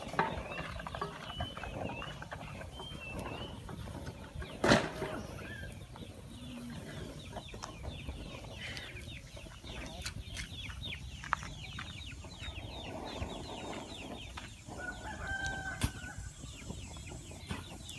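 Wood fire crackling under a metal grill grate, with a sharp pop about five seconds in. Birds chirp and call in the background.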